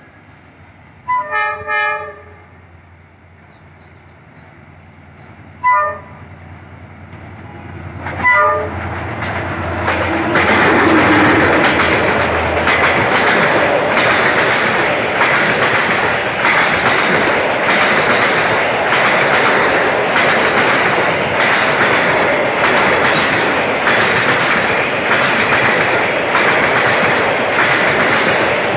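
A D19E diesel-electric locomotive sounds its horn: three short blasts about a second in, then single short blasts around six and eight seconds in. The locomotive then passes and a long freight train of boxcars rolls by, loud and steady, with a rhythmic clickety-clack of wheels over the rail joints.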